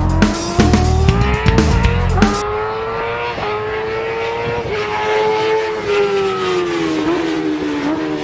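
Intro music with a heavy bass beat stops about two seconds in. A high, buzzing motor-like drone takes over, sliding slowly up and down in pitch with a brief dip about once a second, like a racing engine held at high revs.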